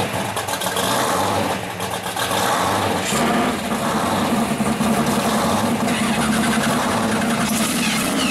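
Supercharged V8 of a blown pro street 1970 Camaro Z28 idling, loud and steady, getting louder about three seconds in.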